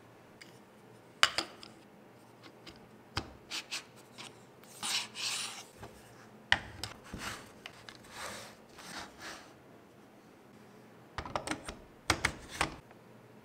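Irregular sharp clicks and knocks mixed with short scraping and rubbing strokes: hand work on parts of a DIY subwoofer build. The longest scrape comes about five seconds in, and a quick cluster of knocks comes near the end.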